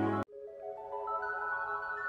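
Background music: a loud, bass-heavy track cuts off suddenly about a quarter second in, and a soft passage of held notes begins, the notes entering one after another and climbing step by step.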